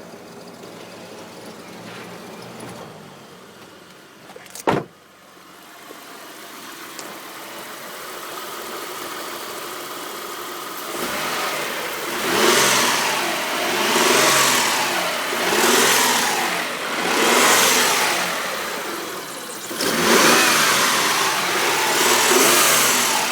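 1998 Mitsubishi 3000GT's 3.0-litre V6 idling, then revved in five blips, the last held for about three seconds. It rattles when revved past about 2000 rpm, which the owner suspects is a spun bearing. A single sharp thump about five seconds in.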